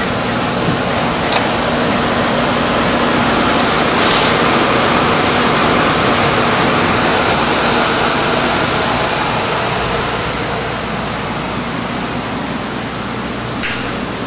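Steady, loud rushing noise that swells slightly a few seconds in and eases off toward the end. A faint low hum runs under it for the first few seconds, a short hiss comes about four seconds in, and a sharp knock comes near the end.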